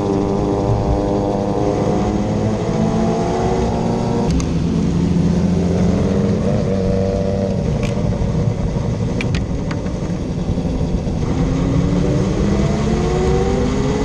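Motorcycle engine heard from on board, its pitch rising over the first few seconds, running lower and steadier in the middle, and rising again near the end, with a few sharp clicks about halfway through.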